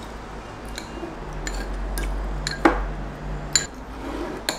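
Metal cutlery clinking and scraping against a small ceramic bowl while stirring, with several sharp, scattered clinks.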